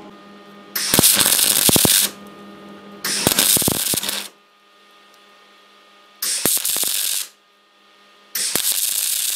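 Sealy Super Mag 180 MIG welder with 0.6 mm wire laying four short tack welds on thin sheet steel, each about a second of crackling arc with short pauses between them. A low steady hum sits under the gaps. The tacks are kept short and stop-start so the arc does not blow a hole in the thin, rusty metal.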